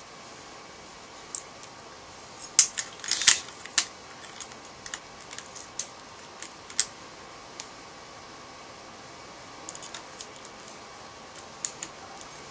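Small metal and plastic parts of an airsoft Version 3 gearbox clicking and clinking as they are handled and fitted, with a cluster of sharp clicks about three seconds in and scattered lighter ones after.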